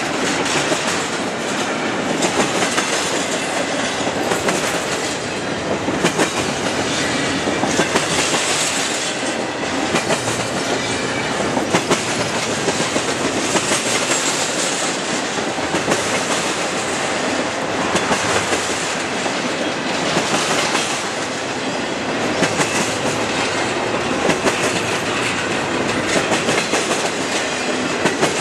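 Freight train of enclosed autorack cars rolling past, a steady loud rumble of wheels on rail with repeated wheel clicks as the cars go by.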